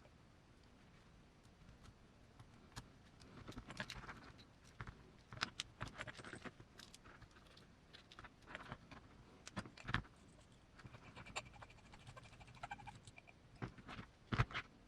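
Irregular small clicks and taps of hand tools and small screws and parts being handled, while the lower links are screwed onto a Traxxas TRX4M's portal axle.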